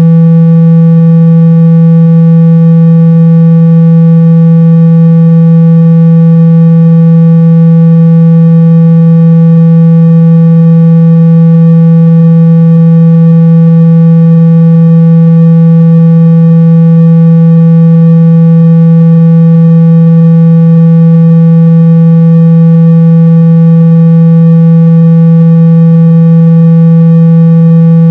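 Loud, steady low electronic tone held at one unchanging pitch: a speaker-cleaning tone played to shake dust and water out of a phone's speaker.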